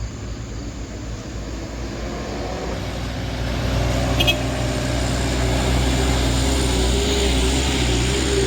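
Intercity bus engine and exhaust running with a deep steady drone, growing louder over the first few seconds as it approaches and then holding. A brief high chirp about four seconds in.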